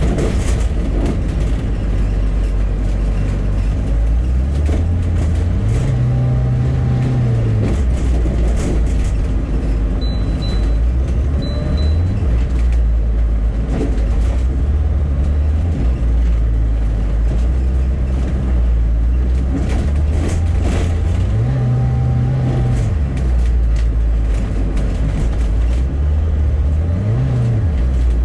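Bus engine running steadily, its pitch rising and falling a few times as it pulls away and works through the gears. Two short high beeps come a little over a third of the way in.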